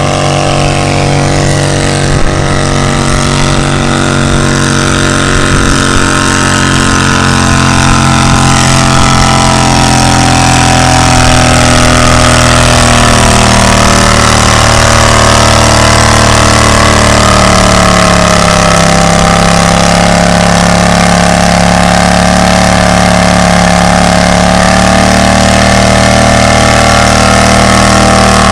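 Modified garden tractor's engine running hard under load as it drags a weight-transfer sled down a pulling track. It runs loud and steady; the pitch sags briefly about halfway, then holds.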